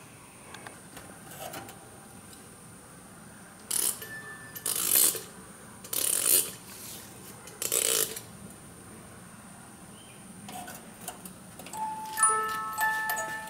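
A Bols Ballerina liqueur bottle's built-in music box starts playing a tune of high, plucked metal notes about twelve seconds in. Before that there are four short bursts of noise.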